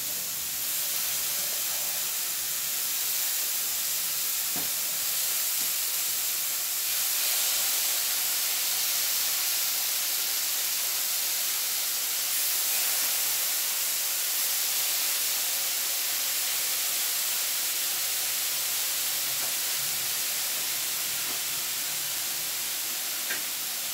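Beef satay skewers sizzling on a hot, buttered electric griddle plate: a steady hiss of meat frying that cuts off suddenly at the very end.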